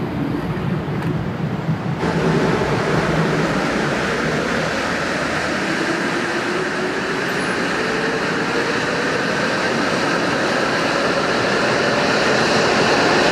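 Mexico City Metro train pulling out of the station. The noise builds about two seconds in, and a whine climbs steadily in pitch as the train gathers speed.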